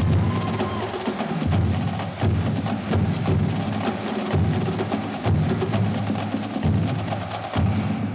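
Marching band drumline playing a fast percussion cadence: dense, rapid snare drum strokes over a lower drum part that comes and goes in phrases.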